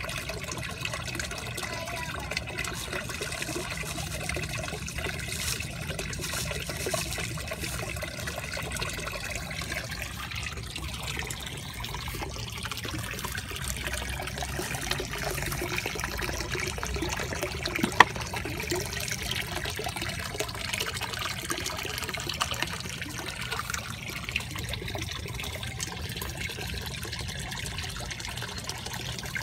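A steady stream of water pouring from an outlet spout into a koi pond, splashing and trickling. A single sharp click about two-thirds of the way through.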